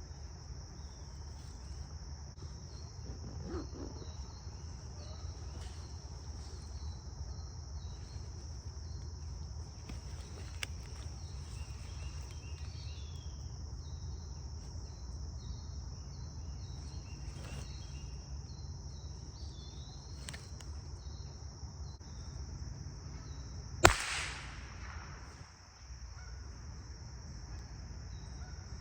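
Steady high-pitched insect chorus with scattered bird chirps, broken a little before the end by a single loud gunshot that cracks and rings off briefly: a hunter's shot at a squirrel.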